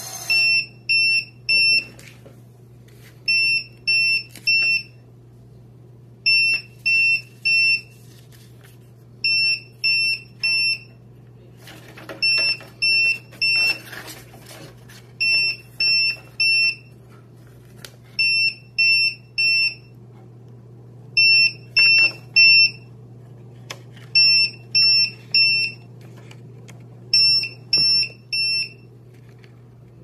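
Built-in buzzer of a WP-103D2 sprocket impact printer beeping in sets of three short high beeps, a set about every three seconds. It is alarming with no paper loaded. Faint paper rustling comes in about twelve to fourteen seconds in.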